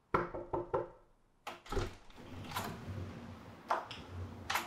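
Three quick knocks on a door, then the latch and handle click several times as the door is opened, with noisy movement between the clicks.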